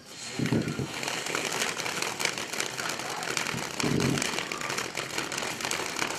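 Peacock Fountain (SS-1102) firework fountain spraying sparks: a steady hiss with dense crackling that starts suddenly at ignition. Two brief low rumbles come through it, about half a second in and again about four seconds in.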